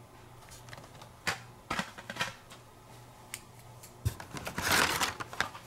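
Hot Wheels blister-card packs being handled and pulled from a cardboard case: scattered light plastic clicks and taps, then a longer rustling scrape of card and plastic about five seconds in.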